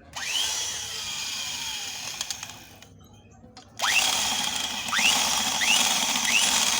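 Electric drill with a 16 mm bit working the broken helicoil out of a chainsaw's spark plug hole. The motor whines up to speed, runs and winds down, then after a short pause is triggered again in a string of quick bursts, each with a rising whine as it spins up. The bit is not managing to remove the coil.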